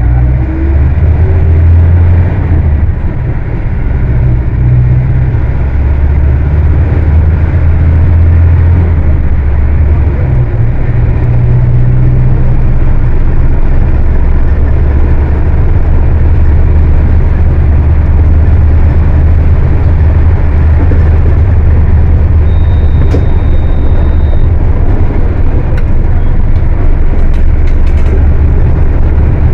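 Diesel engine of a Volkswagen 17-230 OD Euro V bus running loud, with a deep drone. Its pitch shifts several times in the first half and then holds steady. A thin high tone sounds for about two seconds past the middle.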